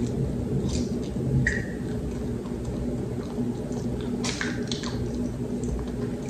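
Mouth sounds of eating fluffy cloud bread: soft chewing with a few faint lip smacks, over a steady low hum.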